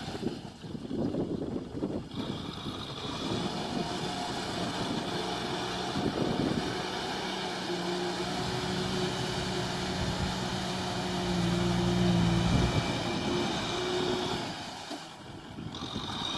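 Kubota M6040SU tractor's diesel engine running under load as it pulls a rotary tiller through wet paddy mud. The steady engine note grows louder to a peak about twelve seconds in, then eases off and dips briefly near the end.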